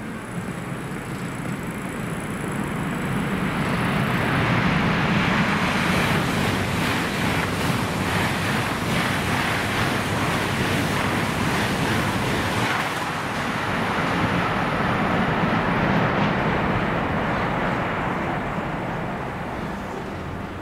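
Eurostar Class 374 high-speed train running through the station at speed. The rushing noise of wheels on rail and air swells over the first few seconds, holds for about ten seconds as the train passes, then fades as it moves away. Faint high whines sound during the approach.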